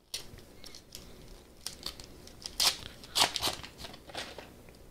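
Trading cards and a foil booster-pack wrapper being handled: a few short crinkling, rustling sounds, the loudest about two and a half seconds in.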